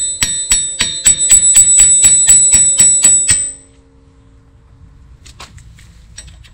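Ball-peen hammer striking a wheel stud in the Mitsubishi 3000GT VR4's steel wheel hub to drive it out: about fourteen quick metal-on-metal blows, roughly four a second, with a ringing tone that hangs on briefly after the last blow at about three and a half seconds in. A few faint taps follow near the end.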